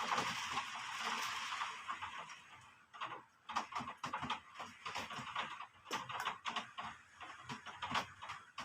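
Rain: a steady hiss for the first two seconds or so, then dying away to irregular drips and taps of falling drops.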